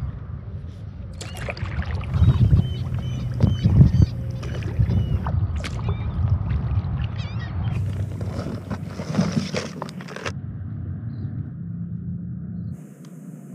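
Kayak paddling on open water: paddle blades dipping and splashing, with water sloshing against the hull and short knocks, changing abruptly several times and going quieter and steadier near the end.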